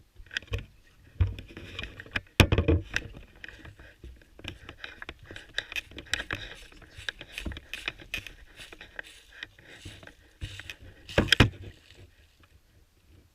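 Irregular rustling and crunching of a player moving through dry leaves and undergrowth, with a few loud knocks: one a second or so in, another soon after, and a louder cluster near the end.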